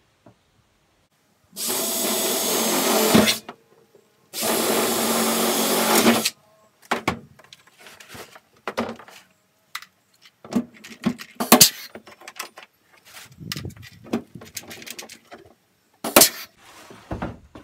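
Pneumatic rivet gun setting two 3/16-inch stainless steel blind rivets through a plastic truck bed liner, each trigger pull a burst of air-driven noise lasting about two seconds. After that come scattered clicks and knocks of tools and rivets being handled.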